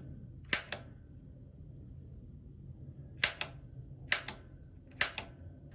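Piezo igniter button on a gas water heater's control valve being pressed four times, each press a sharp snap followed by a smaller click. The plumber later finds that the igniter is not sparking at the pilot.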